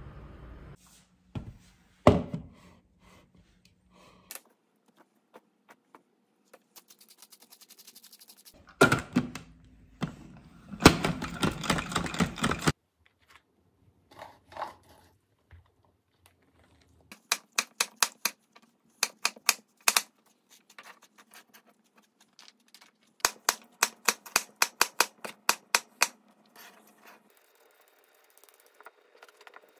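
Julienne peeler shredding a carrot on a cutting board: two runs of quick scraping strokes, about four to five a second. Earlier, a few knocks and a longer clatter.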